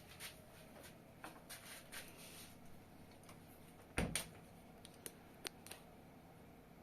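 Quiet room with a faint steady background, broken by scattered sharp clicks and one louder thump about four seconds in, followed by a few more clicks.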